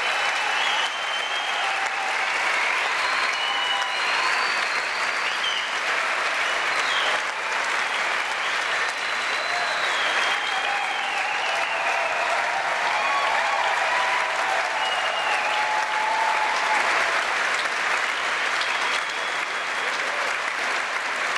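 A large audience applauding steadily, with scattered cheers and voices over the clapping.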